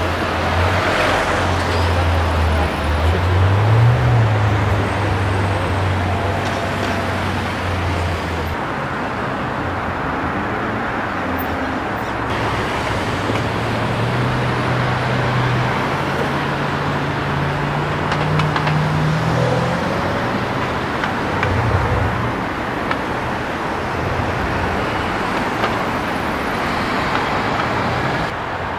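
Road traffic with a car engine running at low revs. The deep engine note rises briefly about four seconds in, then climbs slowly again around the middle.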